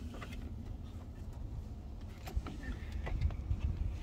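A few faint clicks and rustles of hands working a car seat's rail latch, over a low steady rumble.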